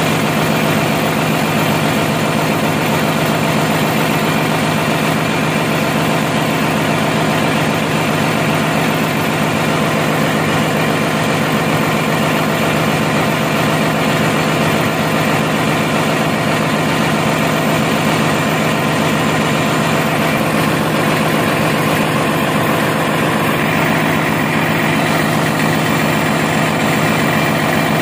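Yanmar diesel generator engine running steadily at constant speed, a loud, unchanging drone.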